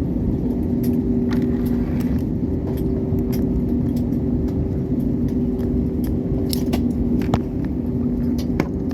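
Airliner cabin noise while taxiing after landing: a steady engine rumble with a constant low hum, and scattered light rattles and clicks from the cabin.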